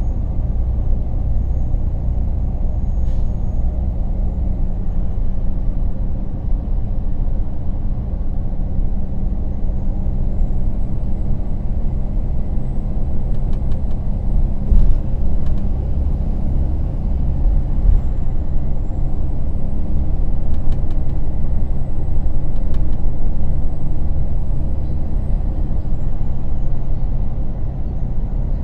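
Temsa Safir Plus coach running under way, heard inside the passenger cabin: a steady low engine and road rumble. A faint high whine rises and falls slowly over it, and a few light clicks come about halfway through.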